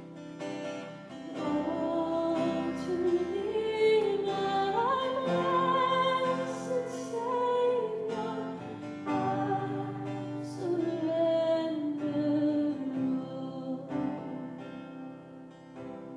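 Worship song played live: a woman's voice singing a slow melody over strummed acoustic guitar and sustained chords, growing quieter near the end.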